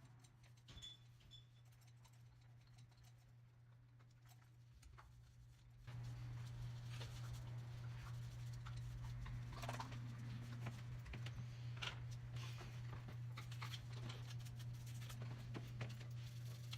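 Steady low hum that gets louder about six seconds in, with faint scattered clicks and short scrapes of handling over it.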